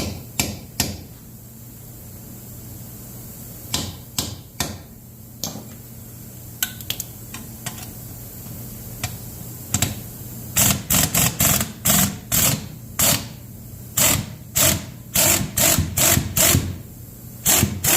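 Hammer blows on a steel socket driven onto a stuck exhaust manifold bolt of a Ford 429 big-block engine, each a sharp metallic strike. A few scattered blows early on, then from about halfway a steady run of roughly two blows a second.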